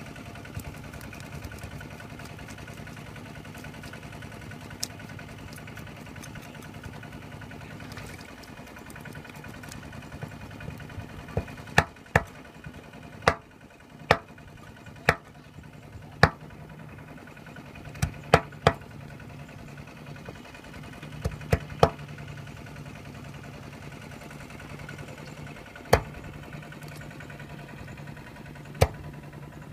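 Small boat engine running steadily. Over it, a cleaver strikes the wooden boat deck in sharp knocks as fish are chopped, about fifteen of them in irregular groups, mostly in the middle.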